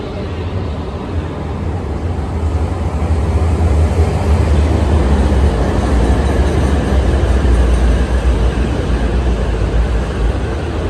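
Shinkansen bullet train moving along the station platform: a loud, steady rumble that builds over the first few seconds and eases a little near the end.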